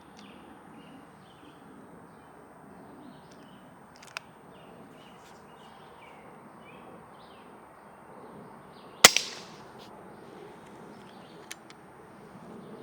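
A single sharp airgun shot about nine seconds in, with a smaller click about four seconds in, over a low outdoor background.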